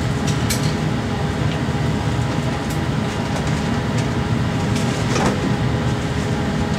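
Steady low rumble of an indoor shooting range's ventilation system, with a faint steady hum and a few faint clicks; no shot is fired.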